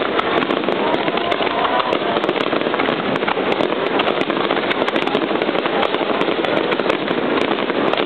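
Aerial fireworks crackling continuously: a dense, unbroken stream of many small rapid pops.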